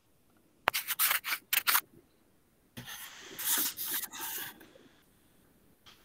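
Scratchy rustling noise heard over a video-call microphone: a quick run of short scrapes about a second in, then a longer stretch of rustling in the middle.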